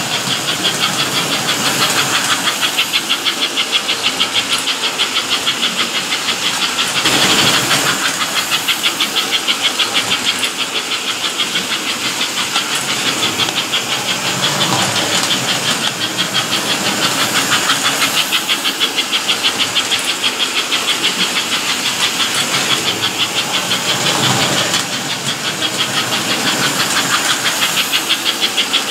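American Flyer S-gauge model steam locomotive running around the layout, its chuffing sound unit going in a fast, even rhythm of hissing puffs over the running noise of the wheels and motor on the tinplate track.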